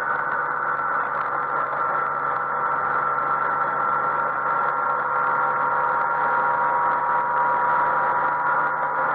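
Yamaha XMAX 125 scooter's single-cylinder engine and CVT running steadily at motorway cruising speed. A few steady tones sit over a constant rush of wind and road noise.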